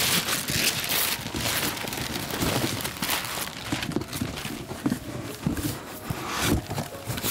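Christmas wrapping paper tearing and crumpling as several presents are ripped open at once.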